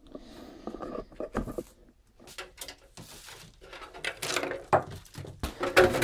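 Perforated sheet-metal top cover of a Pioneer SX-82 tube receiver being handled and lifted off: scattered clicks and knocks with a short scrape, the knocks coming thicker and louder near the end.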